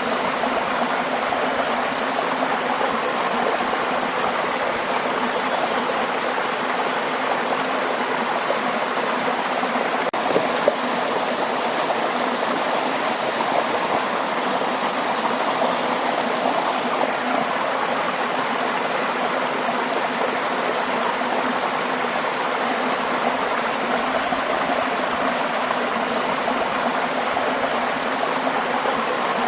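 Waterfall: falling water rushing with a steady, even sound. A faint click comes about ten seconds in.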